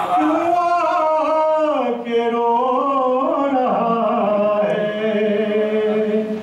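A solo male voice singing a naat, an Urdu devotional poem in praise of the Prophet Muhammad, in long held notes that slide slowly up and down in pitch.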